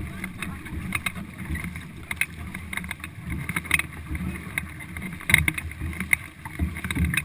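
Paddles of a four-person racing canoe dipping and pulling through the water, short splashes coming about twice a second, over a low steady rumble of water along the hull.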